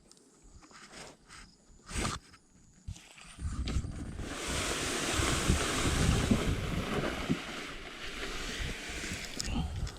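A few sharp knocks, then from about three and a half seconds in a steady rush of wind and water noise.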